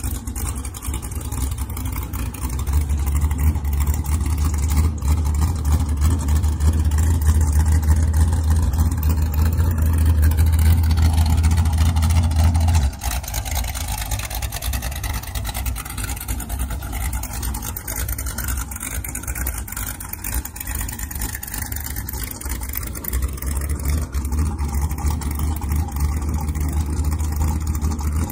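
Low, steady rumble of a race boat's engines running at idle speed in a canal. The rumble drops off suddenly about 13 seconds in and swells again near the end.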